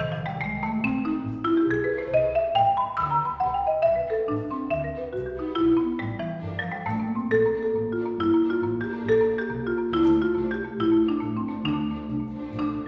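Concert marimba played with quick mallet runs over orchestral accompaniment. Rising runs of notes come in the first few seconds, and later held lower notes sound beneath the marimba.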